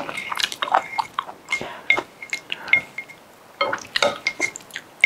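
Chopsticks and a spoon tapping and scraping against a bowl in irregular strokes, some taps leaving a brief ring, with small wet sounds of food being stirred. The strokes pause briefly about three seconds in.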